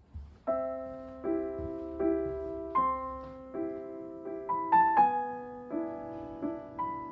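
Slow solo piano music: a gentle chord struck about every three-quarters of a second and left to fade, with a brief higher run of notes near the middle.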